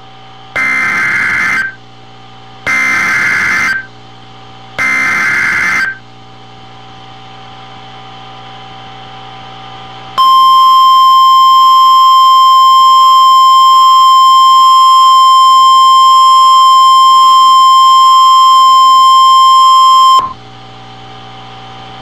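NOAA Weather Radio Emergency Alert System signal. First come three bursts of SAME digital header data, buzzy data tones about a second each, spaced a second apart. After a pause comes the 1050 Hz warning alarm tone, one steady loud pitch held for about ten seconds that cuts off sharply, marking the start of a warning broadcast.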